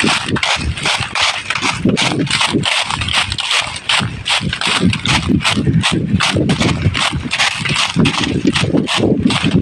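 Quick, regular footsteps crunching through dry leaf litter, several steps a second, like something running over the forest floor.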